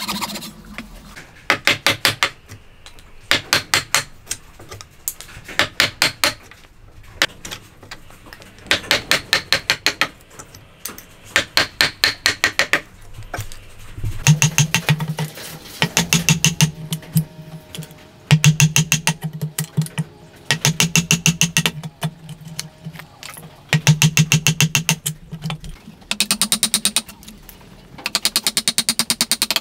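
Hammer striking a wood chisel in quick bursts of rapid blows, each burst about a second long and coming every couple of seconds, as the chisel cuts into a solid timber beam.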